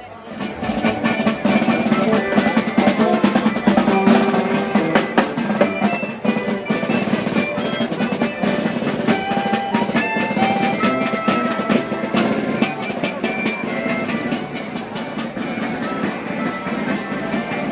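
Street band playing a lively tune on accordion and brass over a steady beat of snare and bass drum.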